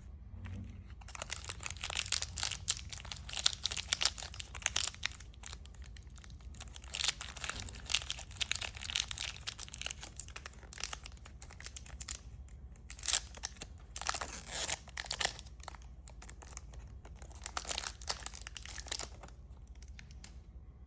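Plastic candy wrappers crinkling and being torn open, in irregular crackly bursts that stop about two seconds before the end.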